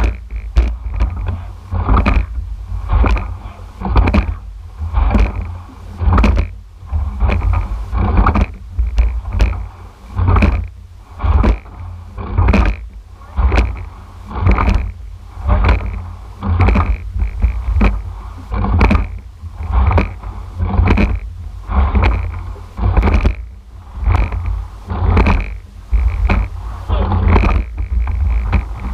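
Men's eight rowing shell under way, heard from a rigger: the rhythm of the rowing strokes sounds as sharp knocks and splashes about once a second, the oars working in their oarlocks and the blades in the water. A steady low rumble of wind and water runs underneath.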